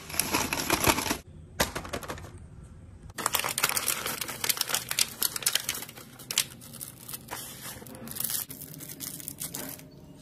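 Paper and thin cardboard rustling and crinkling as they are handled, with many small clicks and taps. The loudest rustling is in the first second and from about three seconds in onward.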